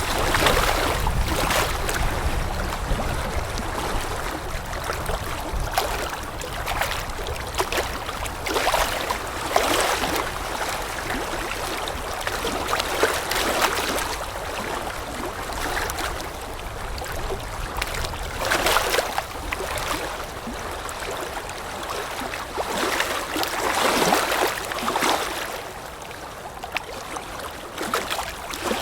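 Small waves lapping at the water's edge in irregular splashes, one every second or two, with wind noise underneath. The low wind rumble is strongest over the first few seconds.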